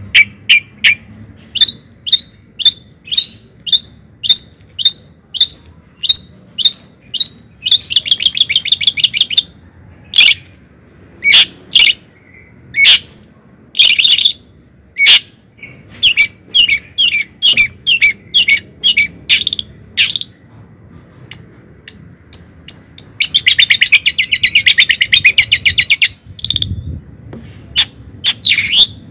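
A bird chirping loudly over and over, about two short calls a second, breaking into fast trills about eight seconds in and again near the end.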